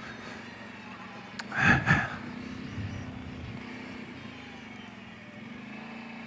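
Kawasaki Brute Force 750 ATV's V-twin engine running steadily at low trail speed. A brief loud knock-like burst comes about a second and a half in.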